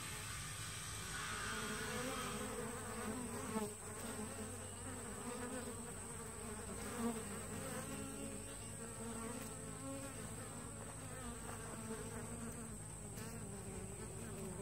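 Honey bees buzzing close by at a hive entrance, the hum wavering and swelling as individual bees fly near and away, with two brief taps.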